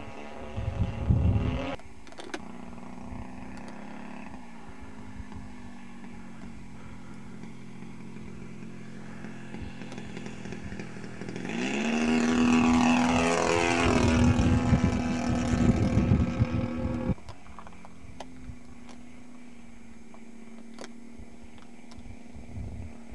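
Engine and propeller of a 30% scale Pilot-RC Extra 260 model aerobatic plane, heard faint and steady at a distance. About halfway through it makes a low fly-by: it grows loud, its pitch slides down as it passes, and it cuts off suddenly before the faint drone returns. Wind buffets the microphone at the start.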